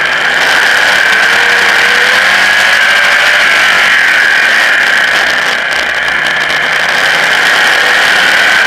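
Modified race car's engine running hard at racing speed, heard from on board the car. The level dips briefly about six seconds in, then comes back up.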